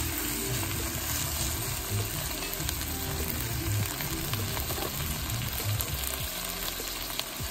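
Elk roast sizzling on a bed of onions in a hot cast iron Dutch oven, a steady crackle with small pops.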